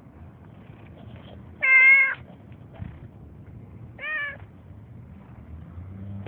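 A cat meowing twice: a loud meow about two seconds in, then a shorter meow about two seconds later that rises and falls in pitch.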